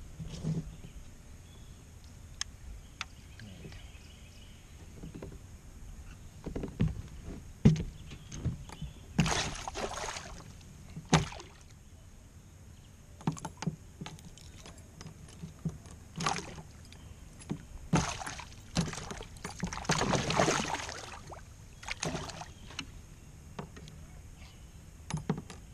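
Irregular knocks and bumps on a plastic fishing kayak while a caught pickerel is handled and unhooked beside the hull, with a few short noisy bursts, the longest near the middle and about three-quarters through.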